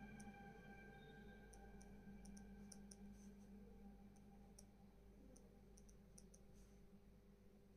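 Near silence: faint, irregular soft ticks and scratches of a pen writing on paper over a low steady room hum.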